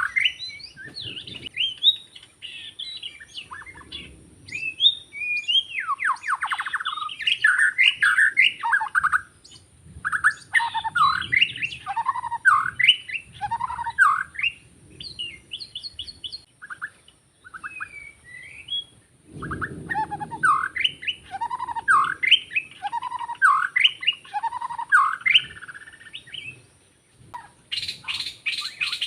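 White-rumped shama singing: quick phrases of varied whistled and sliding notes, broken by short pauses.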